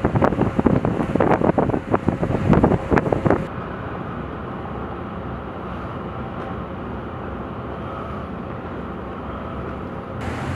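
An amphibious assault ship's heavy anchor chain clanking and rattling as it pays out from the hawsepipe onto the pier: a fast, irregular run of loud metallic knocks that stops about three and a half seconds in. After that only steady wind and harbour noise remains.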